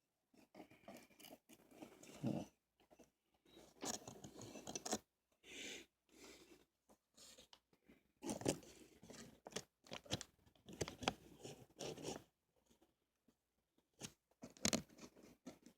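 Irregular scraping, rattling and sharp clicks of hands working the 27-inch iMac's memory cage and plastic compartment cover back into place, struggling to get the cover to seat.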